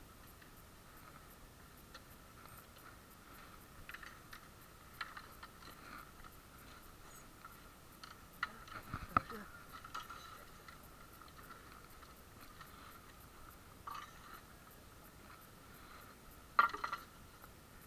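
Faint handling noise from hands fiddling with a pair of sunglasses right at a chest-mounted action camera: a few scattered clicks and scrapes, with a cluster about nine seconds in and the loudest near the end, over a faint steady whine.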